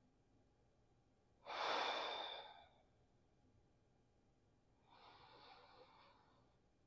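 A man's slow, deep diaphragmatic breathing while lying on his back: one loud breath about a second and a half in that fades out over about a second, then a softer breath about five seconds in.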